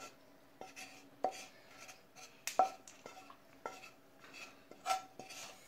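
Wooden spatula scraping sautéed grated coconut out of a pan onto a stainless steel plate: a series of irregular light knocks, each with a short metallic ring.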